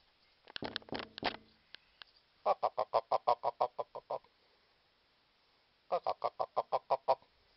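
Goose calling: a short burst of honks about half a second in, then two rapid runs of clipped 'gok-gok-gok' notes, about seven a second, each run lasting one to two seconds.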